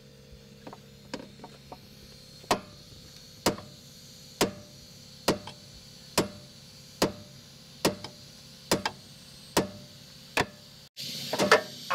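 Hammer striking the inside edge of an off-road truck's wheel rim, about ten sharp blows roughly one a second after a few lighter taps. The rim was bent by hitting a rock step, and the blows are knocking it back into shape.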